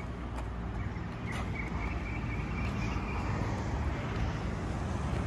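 Motorcycle engine running steadily with a low rumble.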